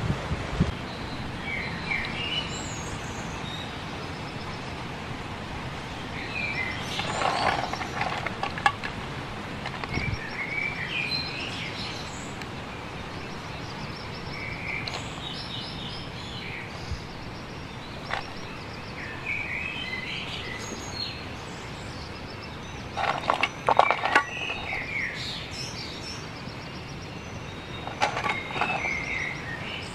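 Birds chirp now and then over a steady outdoor hiss. Three times, about a quarter of the way in, then twice near the end, come short bursts of clicking and clattering: mussel shells knocking against a wire grill as they are turned by hand.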